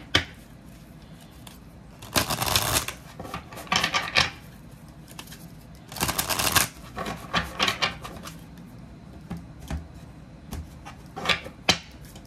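A deck of oracle cards shuffled by hand: several short bursts of cards rustling and flicking against each other, with a few sharp taps near the end.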